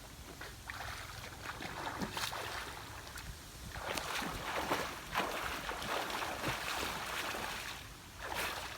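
Irregular swishing and sloshing of water, growing louder about four seconds in.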